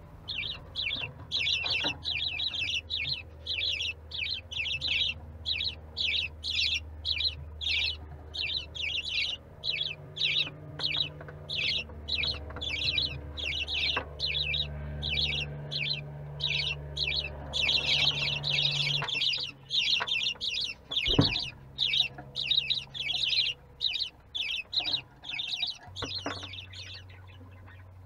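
Budgerigar chicks making repeated short begging calls, about two a second, over a steady low hum. A single sharp click sounds about three-quarters of the way through.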